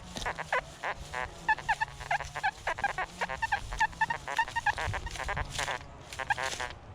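Nokta Makro metal detector's audio as the coil sweeps trashy, iron-filled ground: a rapid run of short high-pitched beeps over a steady low hum, the detector sounding off on many targets.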